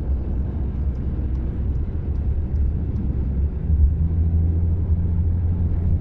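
Steady low rumble of a car driving at motorway speed, heard from inside the car: road and engine noise with a low drone that grows stronger a little past the middle.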